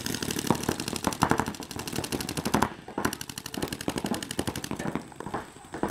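Paintball markers firing rapid strings of shots, many a second, from several players at once, with a brief lull about three seconds in.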